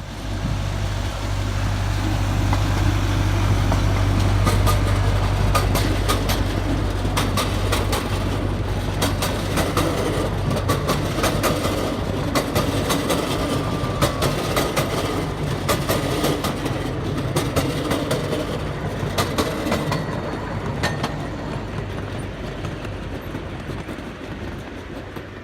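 Small-gauge ride-on park train going by: a steady low engine hum at first, then a long run of rapid clicking and clacking from the wheels over the rail joints, which fades near the end.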